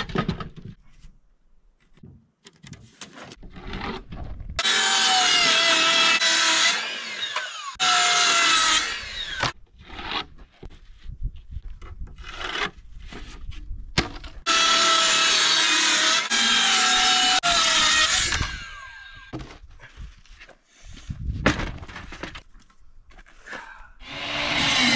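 Circular saw cutting plywood in two long runs about ten seconds apart, the motor's whine dropping slightly in pitch as the blade loads up in the cut. Quieter knocks and handling sounds come between the cuts.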